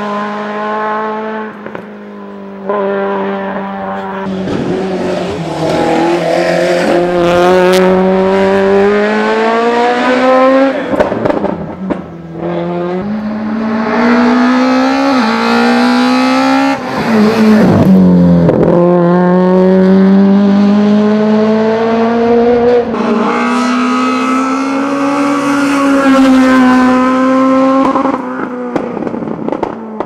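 Peugeot 106 S16 hillclimb car's 1.6-litre 16-valve four-cylinder engine driven hard at high revs. Its pitch climbs steadily through each gear, then drops sharply at gear changes and lifts for corners.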